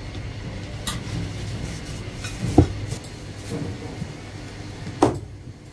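A Chinese cleaver cutting marinated goose on a cutting board, giving a few separate knocks: the loudest about two and a half seconds in and another strong one near the end. Under them runs a steady low rumble.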